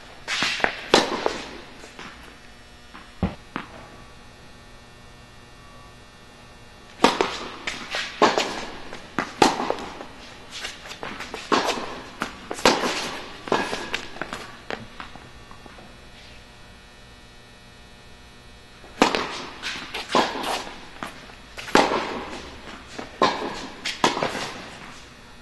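Tennis balls struck by rackets and bouncing on an indoor hard court: sharp pops with an echo from the hall. The hits come in three bursts of rallying, near the start, from about seven seconds in and again from about nineteen seconds, with quieter pauses between.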